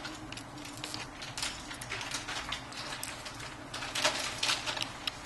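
Light clicks and scrapes of small hand tools and parts during iPhone 6 disassembly, scattered irregularly, with a quick cluster about four seconds in.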